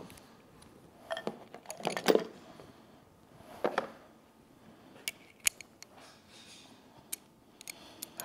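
Scattered light metallic clinks and knocks of hand tools and small engine parts being picked up and put down, about a dozen short taps, the loudest around two seconds in.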